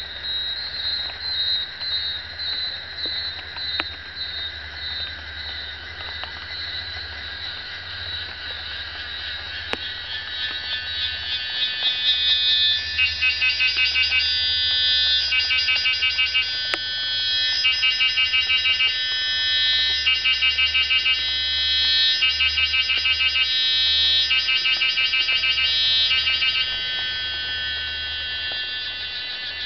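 A chorus of insects calling with a high, buzzing, pulsed song. About twelve seconds in, a louder call takes over, coming in phrases of rapid pulses a couple of seconds long separated by short breaks.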